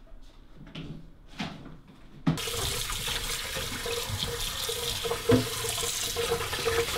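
A kitchen tap comes on about two seconds in, and running water splashes into a stainless steel pot of blanched whelks as hands rub them clean under the stream. There is a single knock about five seconds in.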